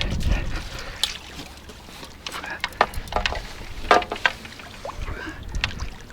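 Wind rumbling on the microphone, with a scattering of sharp clicks and taps, about eight in all, most of them in the middle of the stretch.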